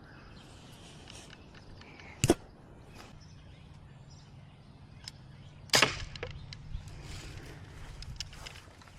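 Red Ryder lever-action BB gun giving two sharp snaps, about three and a half seconds apart; the second is the louder.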